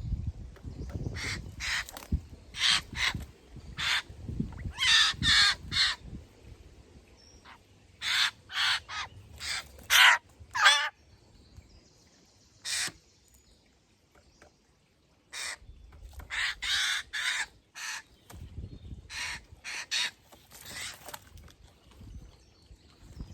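Eurasian jays giving harsh, rasping screech calls, repeated in clusters of several calls with short pauses between.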